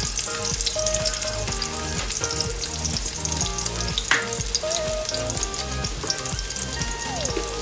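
Whole garlic cloves sizzling and crackling in hot oil in a pot, frying until they turn brownish.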